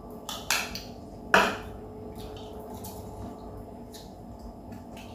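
Chopsticks and spoons clinking against ceramic bowls and plates while people eat: a few sharp clinks, the loudest about a second and a half in.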